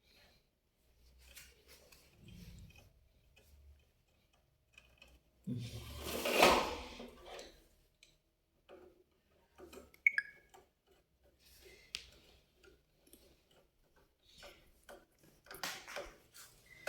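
Faint clicks and taps of hands and tools fitting a wire into the terminals of a smoke detector base, with one louder rustling noise about six seconds in.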